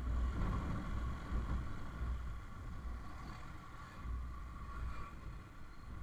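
Ride on a Yamaha R15 V3's 155 cc single-cylinder motorcycle, heard from a camera mounted on the bike: uneven wind rumble on the microphone over steady engine and road noise at low speed. The rumble is strongest near the start and again about four seconds in.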